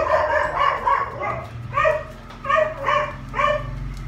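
A small dog barking repeatedly, short high barks about two a second, over a steady low hum.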